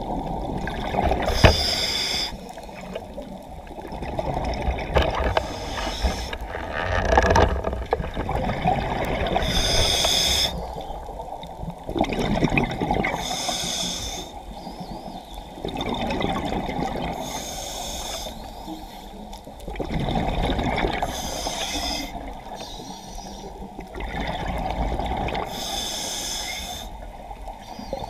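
A diver's breathing, one breath every three to four seconds, each with a short hiss, over water sloshing and bubbling.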